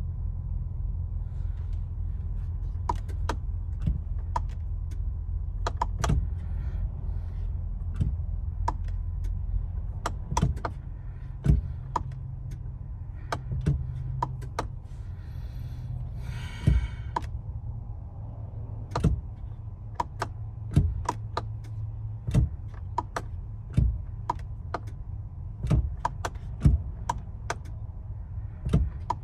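Interior of a 2022 Mercedes Sprinter van with the ignition on but the engine not cranking: a steady low hum with scattered sharp clicks, roughly one or two a second, and a brief rustling burst about two-thirds of the way through.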